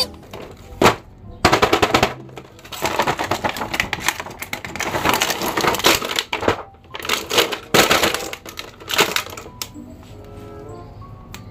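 Clear plastic blister packaging crinkling and crackling as it is handled and pulled from a cardboard toy box, in several quick noisy runs with sharp clicks. Near the end the crackling stops and quiet background music is left.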